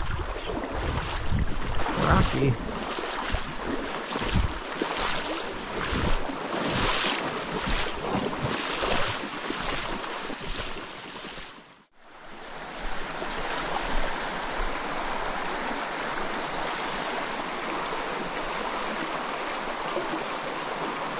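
Shallow stream water running steadily over rocks, with gusty wind buffeting the microphone through the first half. After a cut about halfway through, the water runs on as an even, steady rush without the wind.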